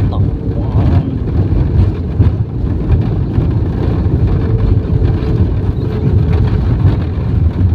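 Jet airliner on its landing roll, heard from inside the cabin over the wing: a loud, steady rumble of engines, airflow and wheels on the runway just after touchdown, with the spoilers raised.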